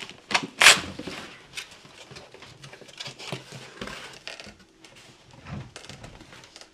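Cardboard boxes being handled as a boxed unit is slid and lifted out of a cardboard shipping carton: scraping, rustling and small knocks, with one sharp knock less than a second in.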